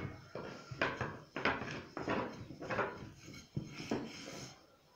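Long thin wooden rolling pin (oklava) rolling out a sheet of pastry dough on an oilcloth-covered table: a regular run of short strokes, a little under two a second, as it is pushed back and forth.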